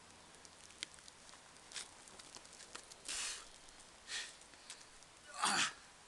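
A person's breathy exhalations: three short puffs of breath, the last and loudest with a little voice in it, over a quiet background with a few faint clicks.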